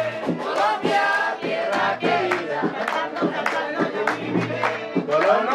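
A live band with saxophone and drum playing lively music, with voices singing along and hands clapping in time to the beat.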